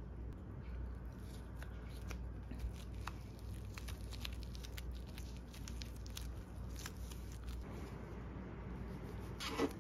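Soft rustles and small clicks of dried laver and rice being rolled by hand into a gimbap roll on a plastic cutting board, over a steady low hum. Near the end comes one louder, short crunch as a knife cuts through the laver-wrapped roll.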